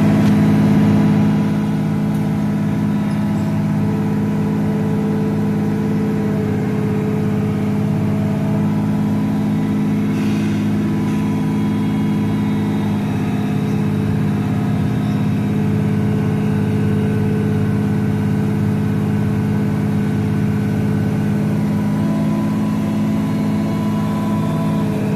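An engine running steadily at constant speed, a low even hum that is slightly louder in the first second or two.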